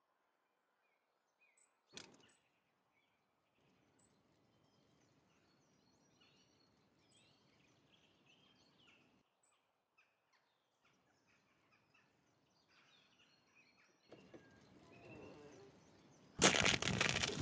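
Quiet outdoor ambience with a few faint, high bird chirps and a sharp click about two seconds in. Near the end comes a loud clatter and thunk lasting about a second, from a car door being opened as the man gets out of the convertible.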